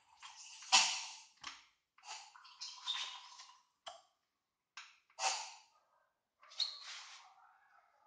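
Sharp metal knocks and clanks from work on a car, about seven spread unevenly, some leaving a brief ringing tail.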